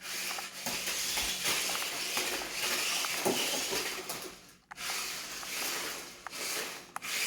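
BEZGAR TD203 RC stunt car driving, its rubber wheels and small electric motors giving a steady scrubbing hiss that cuts out briefly about four and a half seconds in.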